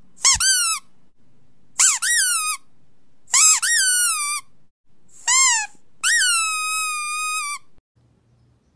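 Five high-pitched squeals, each jumping up in pitch and then sliding down, the last one drawn out and levelling off.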